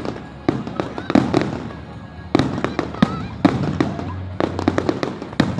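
Fireworks going off: a quick, irregular run of sharp bangs and crackles, with the loudest bangs about two and a half and three seconds in.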